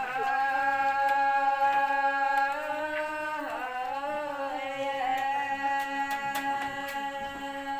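A single voice singing in long drawn-out held notes: one note held for about three and a half seconds, a brief dip and bend in pitch, then a second long held note.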